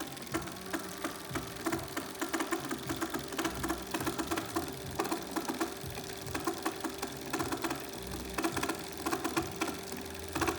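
Bafang BBSHD mid-drive e-bike motor running with a steady hum and rapid, irregular clicking from its gearing. This is the abnormal noise the motor came back with after 600 miles; no missing teeth or damaged parts were found behind it.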